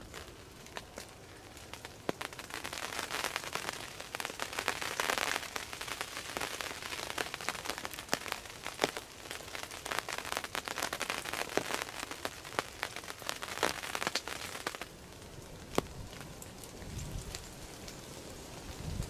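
Rain pattering with many fine drop ticks, heavier for about twelve seconds and then easing off near the end.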